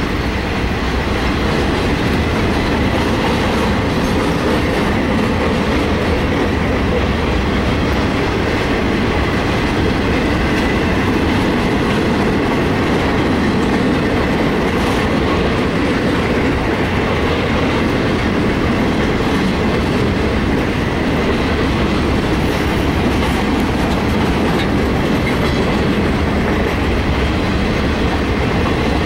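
Ferromex freight train of boxcars rolling past at trackside: a steady, loud rumble of steel wheels on rail.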